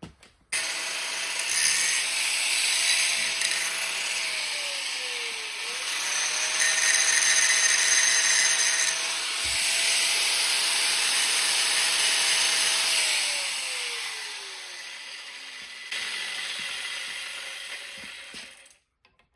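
Angle grinder grinding a bevel onto the end of a steel tube: a steady motor whine over hissing metal-grinding noise. The whine dips in pitch once about five seconds in and picks up again, then winds down over the last several seconds.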